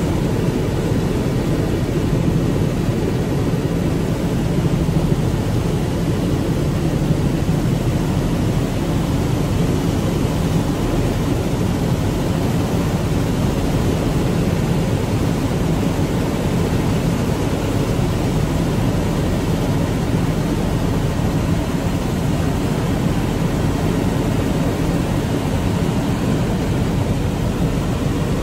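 Steady, unbroken engine drone of a small aircraft in flight, heard from inside the cabin, deep and even with no change in pitch.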